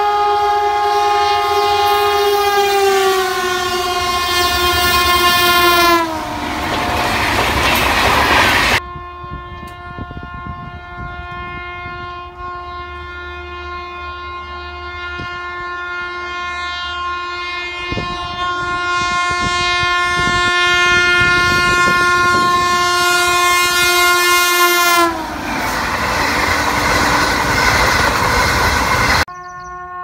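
Indian Railways electric locomotive horns blowing long blasts as trains pass at speed. Twice a horn's pitch drops as the locomotive goes by, and the rushing noise of the passing coaches follows. Wheel clicks on the rail joints sound under the second, longer blast.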